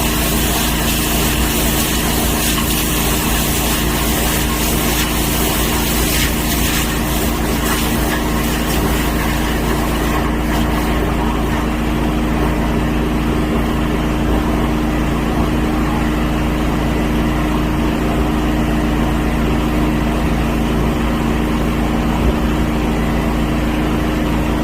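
A machine running steadily with a constant low drone. Its higher hiss drops away about ten seconds in.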